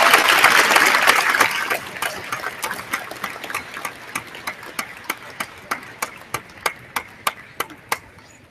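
Audience applauding, the applause fading away and thinning to a few single claps in an even rhythm, about three a second, that stop near the end.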